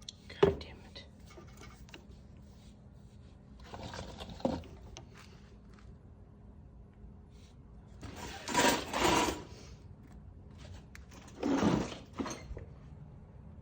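Mechanical work noises from handling tools and parts: a sharp click near the start, a knock about four and a half seconds in, and three short bursts of rasping noise later on, over a faint steady hum.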